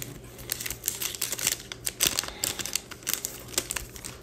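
2023 Topps Chrome baseball cards being handled and slid against one another: a quick, irregular run of light clicks and taps.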